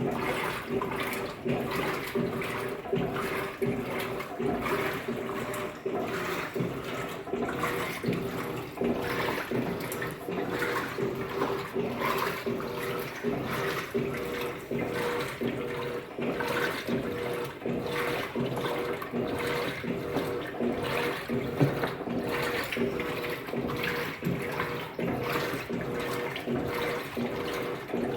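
Top-loading washing machine, an Electrolux Turbo Economia 15 kg, washing a load: water and clothes slosh in the tub in a steady back-and-forth rhythm over the constant hum of the motor.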